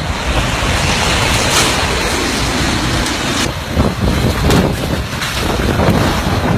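Strong typhoon wind blowing in gusts, loudly buffeting the microphone, with a few short sharp swells near the middle.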